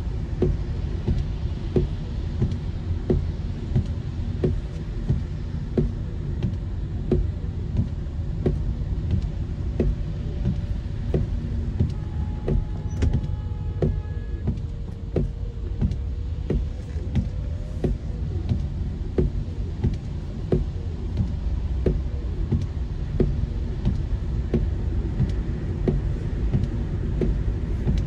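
Steady low rumble of a car driving in heavy rain, heard from inside, with a regular knock at a steady beat throughout, typical of windshield wipers sweeping. A brief steady high tone sounds about twelve seconds in.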